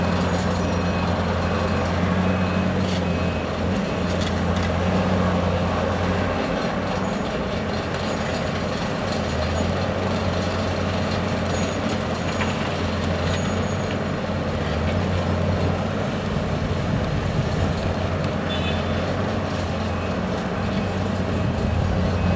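Heavy diesel engines of an excavator and trucks running steadily with a low hum. A faint repeated high beep sounds in the first few seconds.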